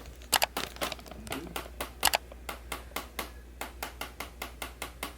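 A rapid, fairly even series of sharp clicks, about five a second, two of them much louder than the rest, about half a second in and about two seconds in.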